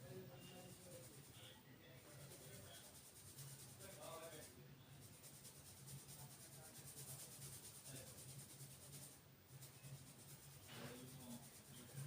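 Faint rubbing and scratching of hands working through oiled hair and over the scalp during a head massage, with a low steady hum underneath.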